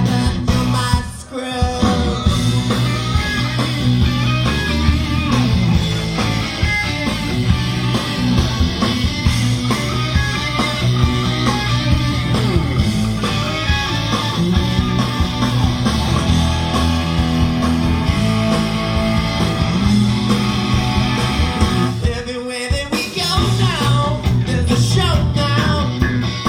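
Live rock band playing a guitar-driven song. The band cuts out for a moment about a second in and again near the end.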